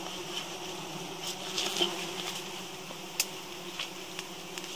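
Giant honeybees buzzing steadily as a swarm, with a few small clicks over the hum and one sharper snap about three seconds in.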